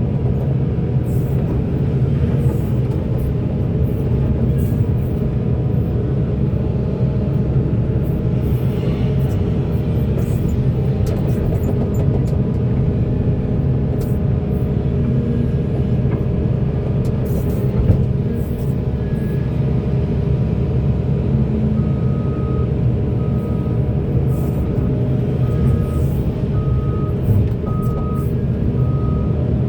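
Large mining hydraulic excavator's diesel engine running steadily under load, heard from inside the operator's cab as a loud continuous rumble. About two-thirds of the way through, a short beep starts repeating about once a second.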